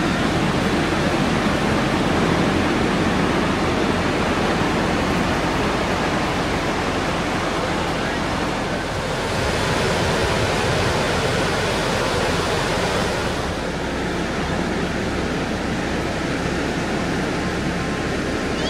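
Surf washing onto a sandy beach, heard as a steady rush of noise whose tone shifts slightly near the middle.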